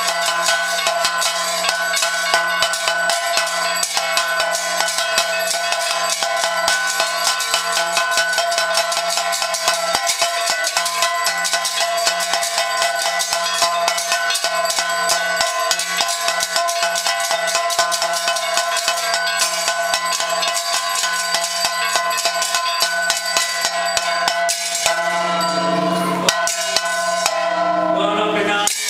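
Temple bells and percussion clanging rapidly and without pause over a steady ringing, as played for the lamp-waving arati. Near the end a lower tone joins and the high clatter thins out.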